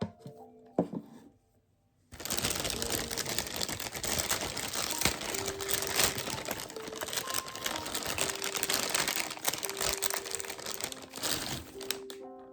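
Plastic packaging crinkling and rustling as it is handled and opened. The dense crackle starts about two seconds in and lasts about ten seconds.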